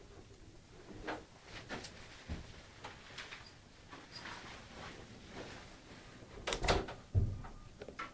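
A wooden door being pushed and handled as someone slips through it, with scattered light knocks, shuffling and handling sounds, and a louder clatter and thump near the end.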